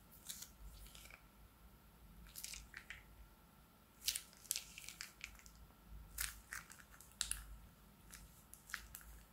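Slime squeezed out of a plastic piping bag into a bowl of slime: faint, short squishy crackles in small clusters every second or two.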